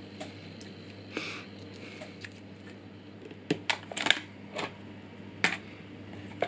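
Hands handling small plastic parts on a tabletop: a short scrape about a second in, then scattered light clicks and taps, several close together in the middle.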